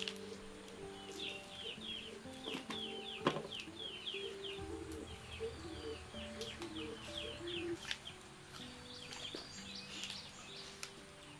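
Soft instrumental background music of sustained notes, with small birds chirping in quick runs throughout. A few sharp clicks, the strongest about three seconds in.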